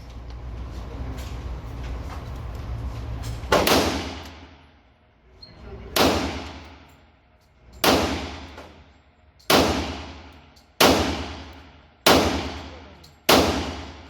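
Seven pistol shots fired at a steady pace, about one every one and a half to two seconds, each ringing out in the reverberant room of an indoor range. The first comes a few seconds in.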